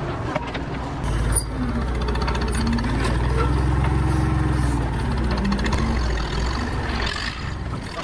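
Massey Ferguson MF-40 backhoe's engine running, heard from the operator's seat; it grows louder about a second in and eases back around six seconds in.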